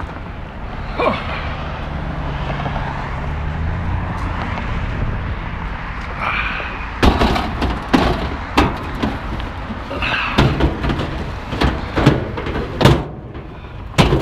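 A steady low hum for the first few seconds, then a run of sharp knocks and clunks, about a dozen over the last seven seconds, as heavy metal coffee-shop equipment is handled and loaded.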